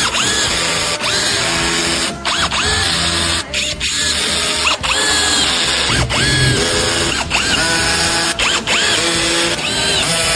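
Background music with a repeating figure of short upward-sliding tones, over a steady beat with sharp clicks.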